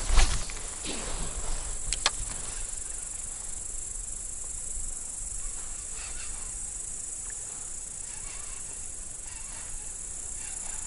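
Steady high-pitched chirring of insects, crickets or grasshoppers, with two sharp clicks in the first two seconds and a low rumble underneath.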